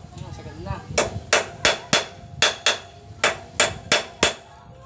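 Hammer driving a steel steering-head bearing cup into a motorcycle frame. There are about eleven sharp metallic strikes in three quick runs of three or four, each with a brief ring.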